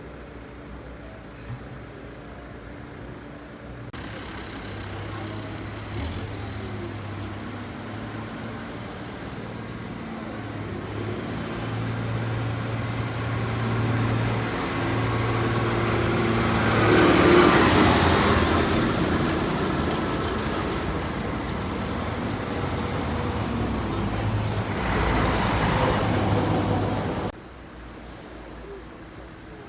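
A motor vehicle's engine running with a steady low hum and passing close. It starts abruptly, is loudest a little past halfway, swells again later, and cuts off suddenly near the end.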